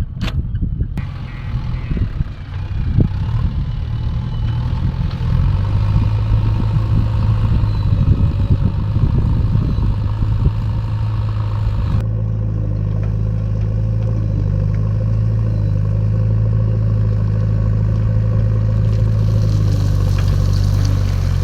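JCB backhoe loader's diesel engine running, rough and uneven at first, then settling to a steadier hum after an abrupt change about halfway through. There are a couple of sharp knocks at the very start.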